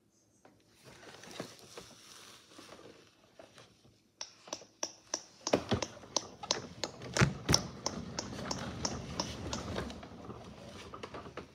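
Quick run of hard plastic clicks and taps from a child's toy ride-on car as the child works its steering wheel, about three clicks a second, starting about four seconds in after faint rustling.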